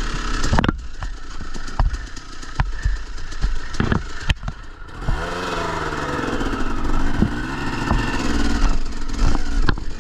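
Motorcycle engine running at low revs with scattered sharp knocks and clatter, then revving up and down in the second half as the bike is worked over rocks at the creek crossing.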